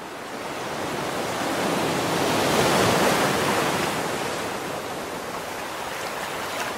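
Ocean surf: a wave rushes in, swelling to its loudest about three seconds in, then slowly washes back out.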